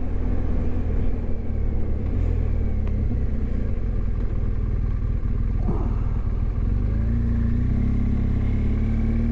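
Motorcycle engine running through town traffic, its pitch dipping midway and then rising steadily over the last couple of seconds as the bike accelerates.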